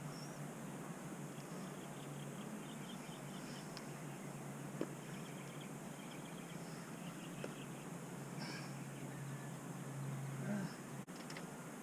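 Outdoor ambience: faint bird calls and quick insect-like chirps over a low steady hum, with a few light clicks.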